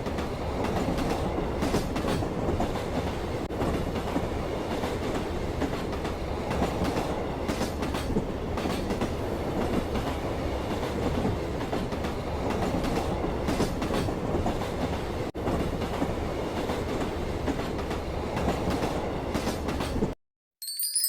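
A train running on rails, heard from aboard: a steady rumble with occasional faint clicks of the wheels, cutting off abruptly near the end.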